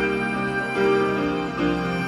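Instrumental music played back from a normal-bias cassette on a Pioneer CT-F9191 deck, starting just before and running on with held notes.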